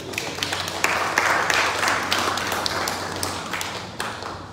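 A congregation applauding: dense clapping that swells over the first second and fades out near the end.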